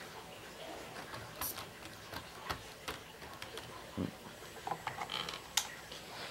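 Faint, scattered small clicks and light taps from hands adjusting a paper towel on model railway track, with a low hiss behind.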